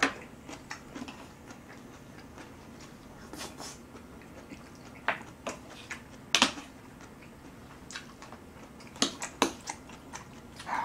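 Someone eating with chopsticks: quiet chewing and mouth noises with a handful of sharp clicks, the loudest about two-thirds of the way through and two more close together near the end.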